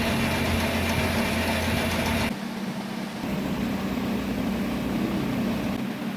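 Lathe running with a steady motor hum; about two seconds in the sound changes abruptly, losing its high hiss and deepest hum while the steady hum carries on.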